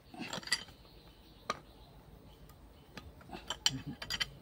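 Metal tools clicking and tapping against the valve springs of a cylinder head as the valve spring locks are worked free: a few sharp clicks at the start, one about a second and a half in, and a quicker run of clicks near the end.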